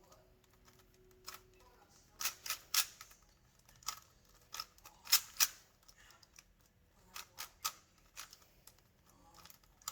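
Plastic clicks of a Rubik's Cube being turned by hand: irregular sharp clacks as the layers are twisted, the loudest a quick pair about halfway through.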